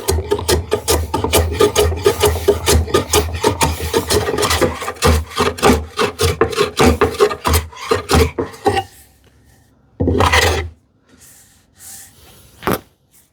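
Hand plane taking quick, short shaving strokes across the wood of a curved drawer front, working the arc down toward a pencil line. About nine seconds of rapid strokes, then a pause and one more stroke.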